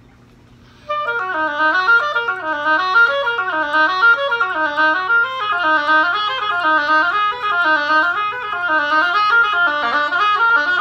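Solo oboe starting about a second in and playing fast, unbroken flowing figures that sweep down and back up roughly once a second.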